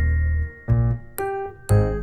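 Background music: electric-piano chords over a bass line, with notes struck about twice a second.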